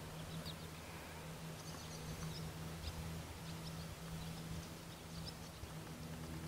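Faint outdoor ambience: a steady low hum, with scattered faint, high, short bird chirps.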